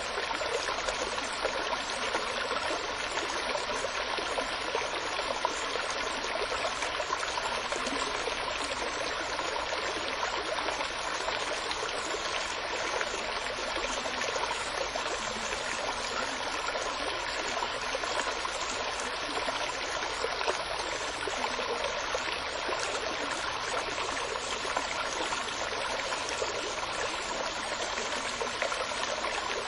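Steady running water, like a flowing stream, without a break or change.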